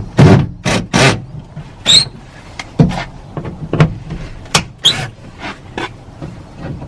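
Irregular metallic clicks and knocks, a dozen or so, a few with a short high ring, as the door latch assembly is fitted and lined up inside a car door.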